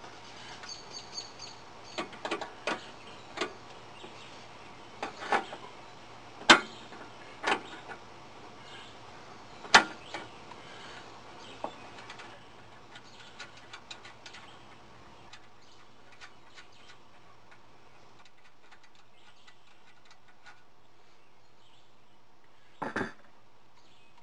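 Scattered sharp clicks and snaps of hand tools as a wire holding a golf cart's old fuel pump is cut loose and the pump and its hoses are handled. The loudest snaps come about six and a half and ten seconds in, then it goes quiet apart from one more knock near the end.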